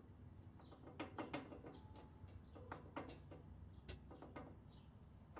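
Faint scattered clicks and taps of hands handling the fittings of a DeWalt DW734 thickness planer that is switched off, over a low room hum.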